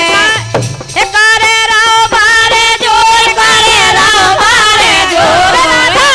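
Women singing a Kartik geet, a devotional folk song, into microphones, the voices holding long wavering notes. The singing drops away briefly about half a second in and comes back at full strength.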